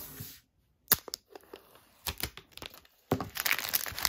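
Clear plastic film being handled: a sharp snap about a second in, scattered crackles, then from about three seconds in a dense, continuous crinkling as the film is crumpled in the hands.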